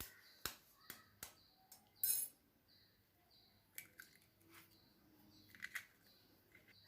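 Eggs being cracked for a batter: scattered light taps and clinks on a bowl, with one louder, brief crackly crunch about two seconds in.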